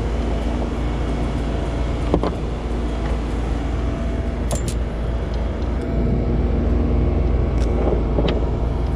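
Boat engine running steadily as a low, even hum, with a few short clicks and knocks on deck.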